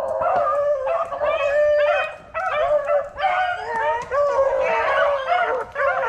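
Pack of beagles baying, several voices overlapping with hardly a break: hounds in full cry running a swamp rabbit.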